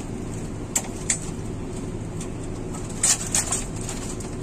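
Short sharp knocks and clicks of metal and plastic parts being loosened and handled, a few single ones early and a quick cluster about three seconds in, over a steady low hum.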